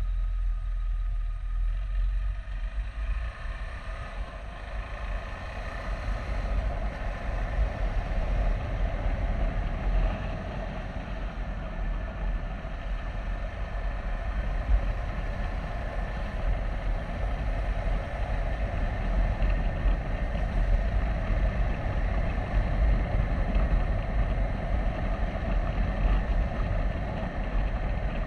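KTM 390 Adventure's single-cylinder engine running steadily while riding, under a heavy, fluctuating low rumble of wind on the microphone.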